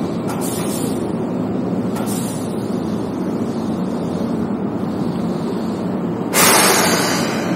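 Steady rumble inside a Keihan Liner electric train car. About six seconds in, a sudden loud hiss breaks in and fades away over about a second.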